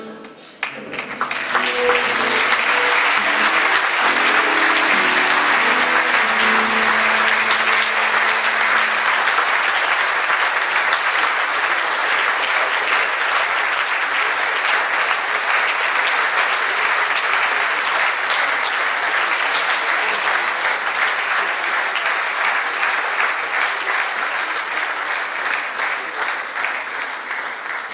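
Audience applauding, with long, steady clapping from a large crowd that starts about a second in and eases slightly near the end. The last notes of the music linger under the clapping for the first several seconds.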